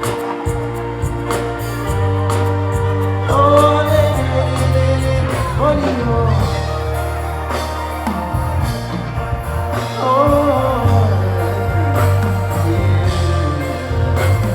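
Music with singing: a steady heavy bass and a sung melody line.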